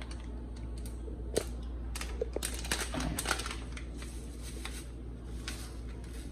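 Small plastic packet of dried thyme crinkling and being tapped as it is shaken out, giving a scattered run of light, sharp clicks, thickest over the first half.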